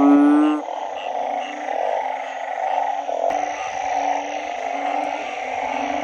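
Banded bullfrog (Asian painted frog) giving one loud, low call about half a second long at the start, over a steady chorus of frogs and insects with a higher chirp repeating about twice a second. A faint low rumble joins about halfway.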